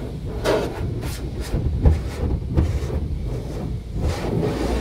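Car wash soft-cloth brushes and hanging cloth curtain slapping and swishing against the car, heard from inside the cabin: a string of irregular slaps, about two a second, over the steady low rumble of the tunnel machinery.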